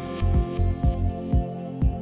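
Background music: sustained synth chords over a steady kick-drum beat of about two hits a second.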